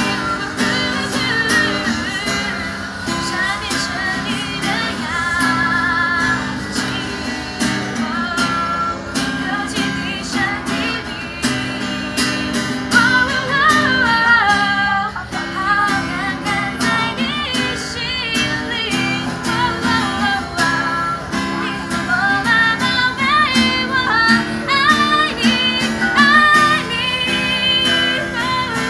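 A woman singing a slow pop ballad with vibrato while strumming an acoustic guitar.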